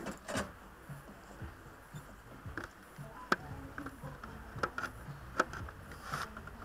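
A few faint, sharp clicks and taps scattered over a low, quiet background; no engine running yet.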